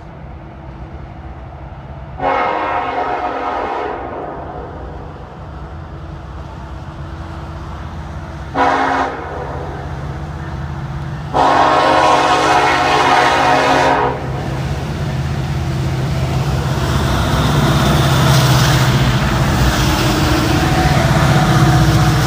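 Diesel freight locomotive air horn sounding three blasts, long, short, then long, as the train approaches. Then the low rumble of the diesel locomotives and their wheels grows louder as the locomotives pass close by.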